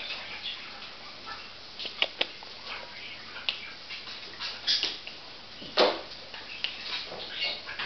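A pet dog moving about close by: scattered small clicks and soft rustles, with one louder, short sound about six seconds in.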